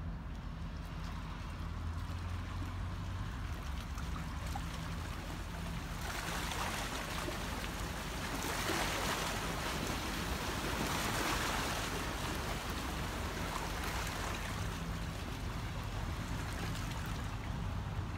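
A steady low engine drone, with a rushing, water-like noise that swells up about six seconds in, peaks, and eases off again.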